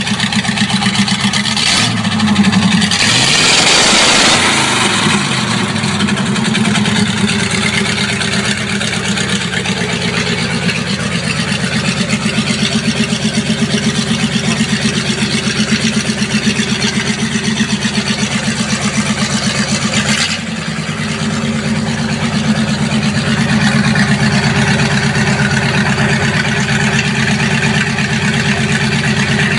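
Ford 8BA flathead V8 (239 cubic inch) running on an engine stand through triple Stromberg 97 carburettors and stainless steel exhaust headers, idling steadily. About three seconds in the throttle is blipped once, the revs rising and falling back to idle.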